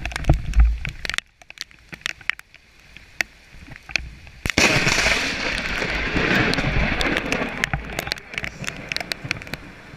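Thunder from a very close lightning strike: a sudden loud crack about four and a half seconds in, rumbling on and fading over about three seconds. Sharp clicks of rain come before and after it.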